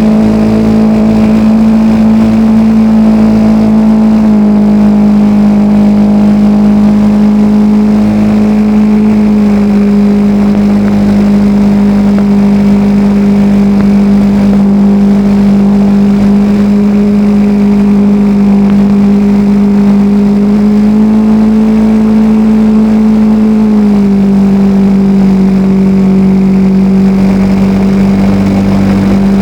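Radio-controlled L-19 Bird Dog model plane's engine and propeller running steadily in flight, heard from a camera mounted on the plane. The pitch steps down slightly a few seconds in, rises again about three quarters of the way through, then drops back as the throttle is moved.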